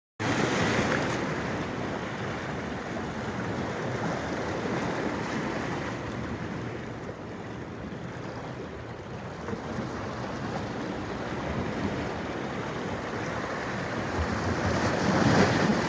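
Running water, a steady rushing wash with no distinct tones, swelling a little near the start and again near the end.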